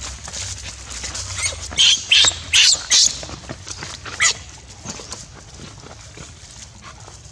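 Newborn baby macaque screaming in a string of short, shrill bursts about two to three seconds in, with one more a second later. These are distress cries while its mother pins it down.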